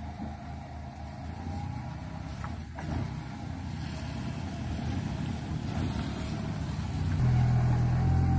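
An old pickup engine, fitted under a home-built wooden body, running as the vehicle drives slowly through a turn. It grows suddenly louder about seven seconds in, as the rear and tailpipe pass close by.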